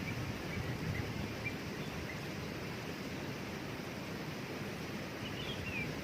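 Waterfall rushing steadily, with a few faint high bird chirps in the first two seconds and a short bird call near the end.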